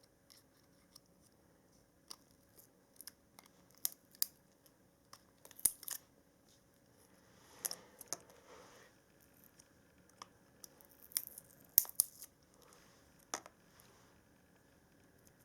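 Pliers working the metal tabs between lithium-ion cells of a laptop battery pack apart: a string of irregular sharp clicks and snaps, with a short rustle about halfway through.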